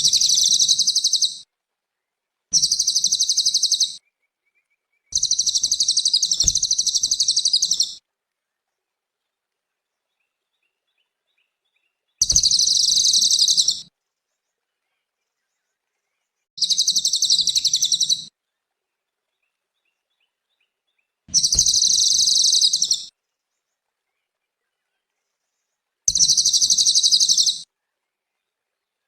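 A cililin songbird singing a fast, high, dense trilling song. It comes in seven separate bursts of one to three seconds each, with silences between them.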